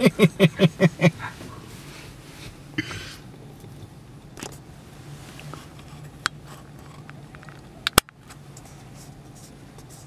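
A person laughing in quick, rhythmic bursts for about a second, then the steady low hum of a car cabin with a few faint ticks and one sharp click about eight seconds in.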